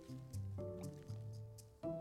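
Background film score music: short pitched notes with sharp attacks, a new note about every half second, over a low bass line.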